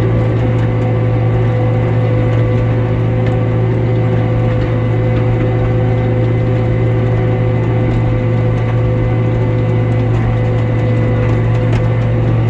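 Tractor and hay-cutting machinery running steadily while mowing: an even low engine hum with mechanical gear and drive clatter on top.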